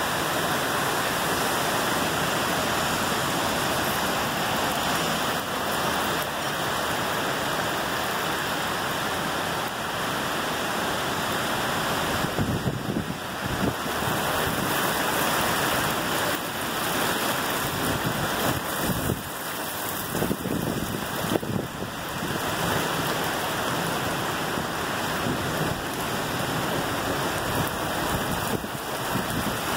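Heavy rain falling steadily in a severe thunderstorm, an even hiss with some uneven surges in the middle.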